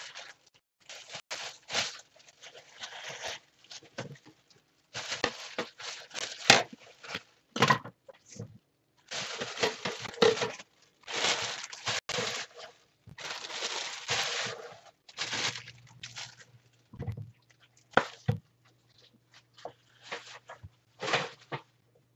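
Clear plastic packaging bag rustling and crinkling in irregular bursts as it is pulled off and handled, with a few sharp clicks.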